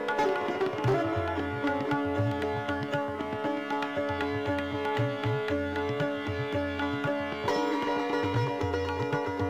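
Instrumental background music: held, sustained notes over a recurring low drum stroke.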